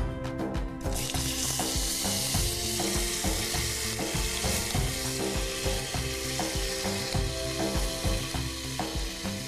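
Soaked rice poured into hot oil and whole spices, sizzling and frying from about a second in, with a steady hiss. Background music with a beat plays underneath.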